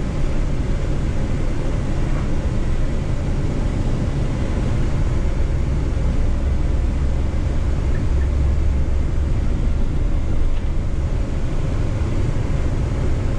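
Intercity coach driving along a highway, heard from the driver's seat inside the cab: a steady low drone of engine and tyre noise.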